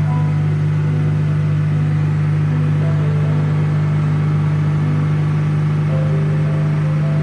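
Cessna 172 light aircraft's piston engine and propeller droning steadily in flight, with a deep, even hum that does not change.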